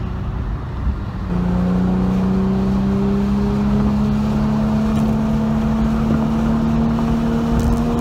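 Car engine accelerating, heard from inside the cabin: it opens up about a second in and its pitch climbs slowly and steadily.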